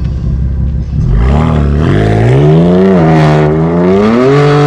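BMW M4's twin-turbo inline-six with an Akrapovič exhaust idling with a low rumble, then launching hard about a second in. The loud exhaust note climbs in pitch through the gears, dropping at each upshift.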